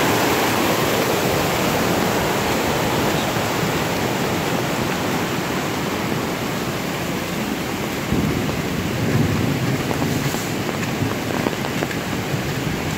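Heavy downpour together with rushing floodwater: a loud, steady, dense hiss of rain and running water. A low rumble swells about eight seconds in.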